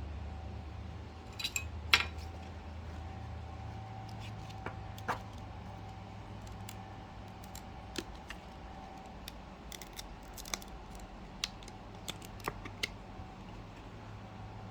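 Scattered light clicks and taps from trading cards and a hard plastic top loader being handled, one sharper click about two seconds in, over a faint steady hum.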